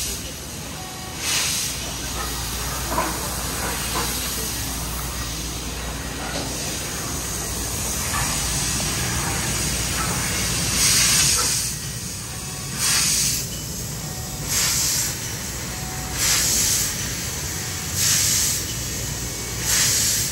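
CNC laser cutting table cutting thick steel plate: a steady hiss of the cut over a low machine hum. From about eleven seconds in, short louder hisses come about every second and a half.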